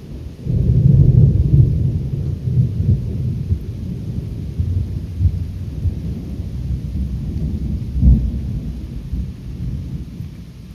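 Thunder rolling in a thunderstorm. A loud low rumble starts about half a second in and rolls on, with a second boom about eight seconds in, then fades. Rain hisses underneath.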